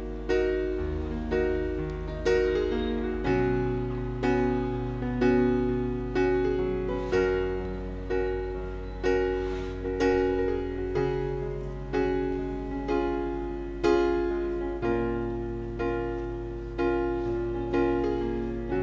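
Background instrumental music: evenly spaced notes, about two a second, each fading after it is struck, over a bass line that changes every few seconds.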